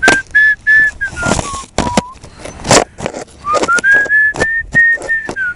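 A person whistling a tune in two phrases of held notes that rise and fall, with loud sharp knocks and clatter in between.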